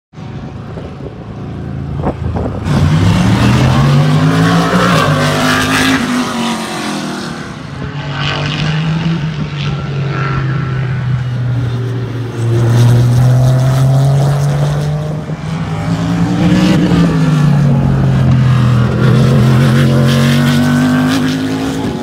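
Race car engines at full speed passing the trackside, among them an Acura NSX GT3's twin-turbo V6; the engine notes climb and drop in pitch several times as the cars come past and shift, loud throughout.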